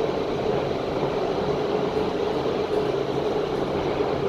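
Steady hum and even rush inside a KONE MonoSpace machine-room-less traction elevator car as it travels in the shaft.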